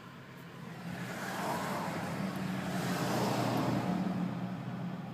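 Car engine and road noise heard from inside a moving car: a steady low hum with a wash of noise that swells through the middle and eases off toward the end.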